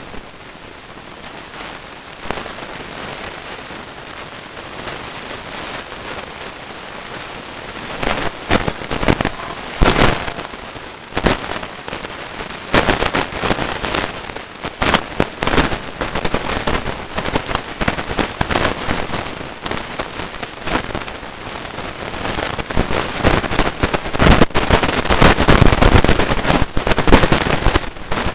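Steady hiss of rain, and from about eight seconds in, irregular sharp cracks and pops that come thicker and louder toward the end.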